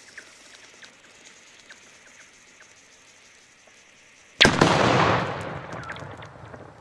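A large Polish firecracker (Polenböller) bursts on pond ice with one sharp bang about four and a half seconds in, breaking the ice. The bang rings out and fades over about two seconds.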